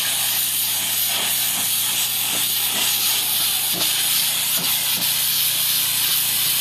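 Pressure washer running, its high-pressure water jet hissing steadily as it blasts dirt off the house.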